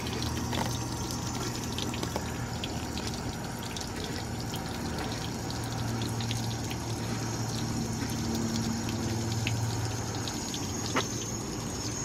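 Steady rush of water from a hose feeding the outboard's lower unit, with a low hum underneath and a few faint ticks.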